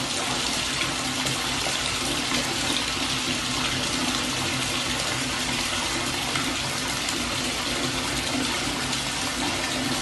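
Steady rush of running water in a tiled bathroom, like a shower or bathtub tap left on, with no change throughout.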